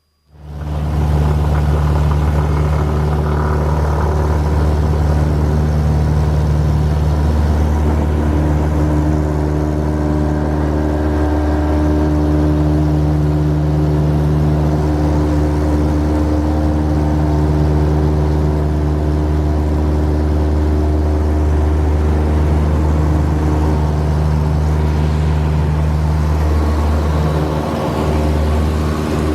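Cessna 172's piston engine and propeller running steadily, heard inside the cabin; it comes in suddenly and holds an even drone.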